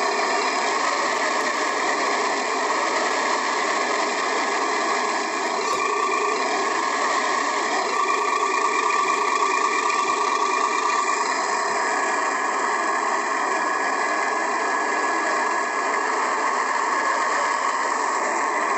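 Electric motor and geared drivetrain of an HG-P408 scale RC Humvee running steadily as it drives, heard from inside its cab: a steady whine over gear noise, its upper tones shifting a little about halfway through.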